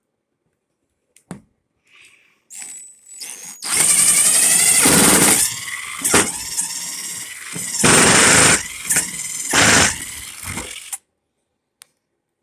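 Power drill running with a high whine, revved hard three times with quieter running in between, over about seven seconds.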